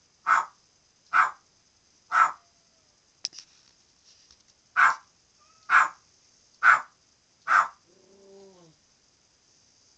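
Pet parrot imitating a dog's bark: seven short barks about a second apart, three then four, with a click between them. A softer, lower call that bends in pitch follows near the end.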